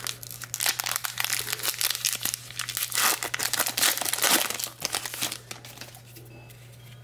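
Wrapper of a 2014 Bowman Jumbo baseball card pack being torn open and crinkled: a dense run of irregular crackles that dies away about five and a half seconds in.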